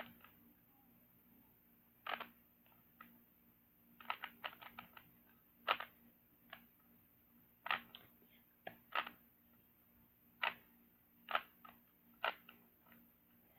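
Rubik's cube layers being turned by hand: faint, irregular quick clicks, some in rapid runs of several.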